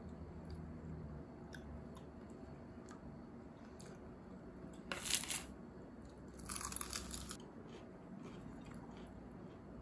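A person eating: soft chewing clicks, with two brief crunchy bursts, about five seconds in and again about a second and a half later.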